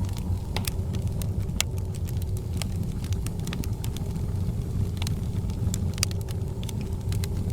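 Wood fire burning in a fireplace: irregular sharp crackles and pops, several a second, over a steady low rumble of the flames.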